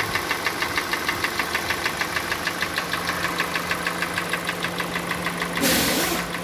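Kia Sportage's G4NA 2.0-litre four-cylinder petrol engine running with a rapid, even knocking: the engine knock that the mechanic expects to come from scored cylinders. A brief loud hiss comes near the end.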